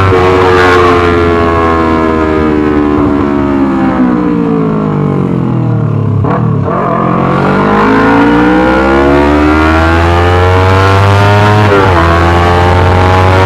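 Yamaha R25's parallel-twin engine through a Racefit Slash aftermarket exhaust, running loud. Its pitch falls smoothly for about six seconds, then climbs back up, with a short break near the end before it holds steady.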